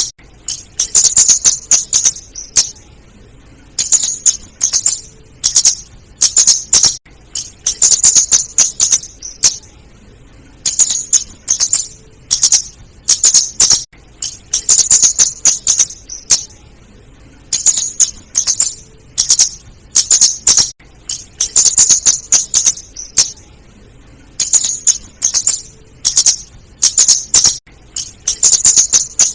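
Female flowerpecker (kemade, cabe-cabean) calling: rapid high, dry ticking chips in bursts of one to two seconds, repeating after short pauses. It is a lure call used to draw in the birds.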